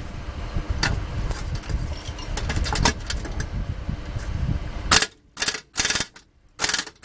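Socket ratchet turning out a 17 mm bolt on the rear wheel-bearing hub of a Honda CR-V: handling clatter and low rumble at first, then from about five seconds in four or five short ratchet clicking spells with pauses between, as the bolt is backed out.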